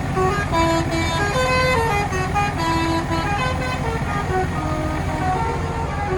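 A tour bus's 'telolet basuri' musical horn plays a tune of short stepped notes that keeps on without a break. A bus's diesel engine runs underneath it.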